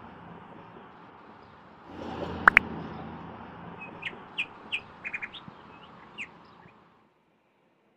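Small birds chirping in short, scattered calls, with one loud sharp chirp about two and a half seconds in and a quick run of chirps later, over a steady outdoor hiss. The sound cuts off abruptly near the end.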